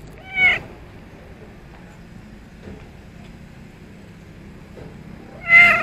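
Orange-and-white cat meowing twice for food: a short meow about half a second in and a louder one near the end, with a steady low hum underneath.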